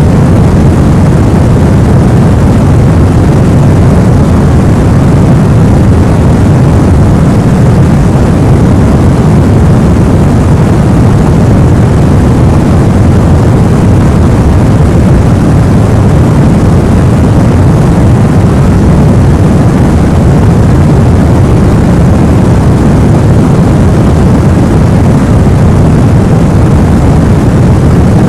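Steady, deep sleep noise: a continuous hiss weighted heavily to the bass, more like brown noise than bright white noise, unchanging throughout.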